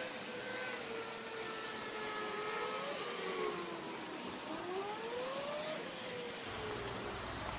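Engines of passing motor vehicles, their pitch rising and falling as they go by, over a steady high hiss; a low rumble comes in near the end.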